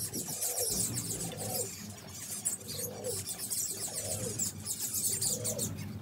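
A flock of small finches chirping and twittering together in a constant, rapid, high-pitched chatter.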